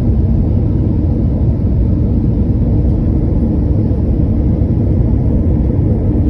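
Steady low rumble of an Airbus A320's jet engines and airflow, heard inside the cabin from a window seat over the wing in flight.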